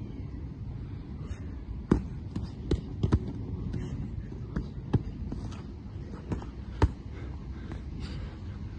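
Boxing gloves landing punches during sparring: about eight sharp, irregular thuds, spaced unevenly, over a steady low rumble.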